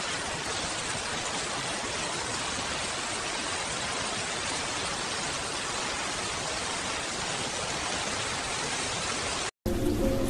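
Steady, even hiss of heavy rain, with no single drops or thunder standing out. Music comes back in just before the end.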